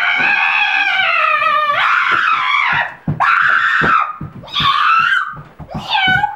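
A man's high falsetto voice letting out wordless cries: one long, drawn-out cry lasting about two seconds, then several shorter ones.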